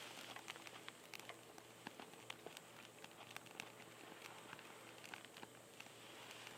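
Faint crackling of a wood fire in a small camp stove: scattered sharp ticks and pops over a low hiss.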